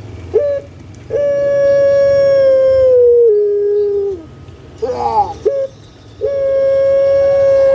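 A caged puter pelung (Barbary dove, Streptopelia risoria) calling: a short rising note, then a long, steady held note that steps down in pitch before fading. A quick rolling cluster of notes follows about five seconds in, then a second long held note begins.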